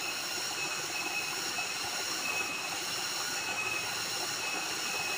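Small waterfall pouring into a stream pool, a steady rushing of water, with steady high-pitched ringing tones and a short high note repeating every second or so above it.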